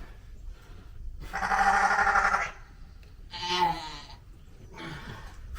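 Sheep bleating: one long, wavering bleat about a second in, a shorter one in the middle, and a faint brief one near the end.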